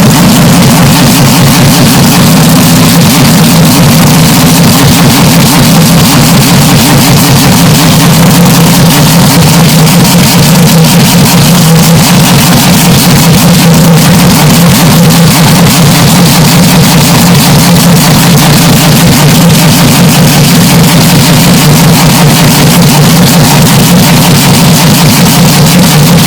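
Steady engine drone, deliberately overdriven to full level so that it is heavily clipped and distorted, holding one pitch without rising or falling.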